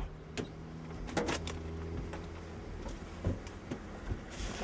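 A few short clicks and knocks, scattered and irregular, over a low steady hum.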